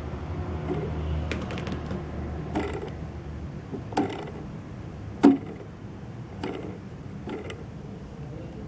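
Turnigy Multistar V2 2206-2150KV brushless quadcopter motor turning with rough, noisy bearings: a steady low hum with sharp knocks roughly every second and a quarter, the loudest about five seconds in. The noise is the sign of the motor's bad bearings.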